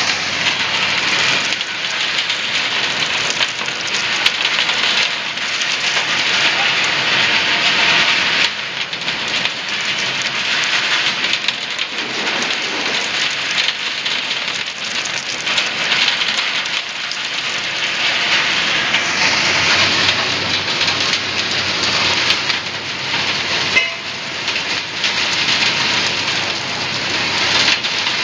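ZSF30 concrete reclaimer (sand and stone separator) running, with wash water and wet sand and gravel splashing and pouring through it and out of its outlets: a steady rushing hiss that swells and eases slightly.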